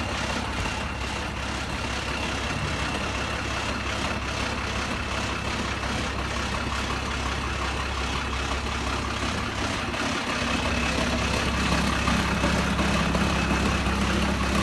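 Diesel engine of a yellow wheel loader idling steadily, a low hum with a faint high whine, a little louder from about ten seconds in.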